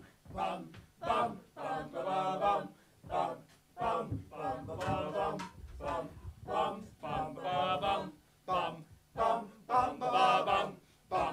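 Male voices singing a cappella in short wordless phrases, with a wavering vibrato and brief silences between them.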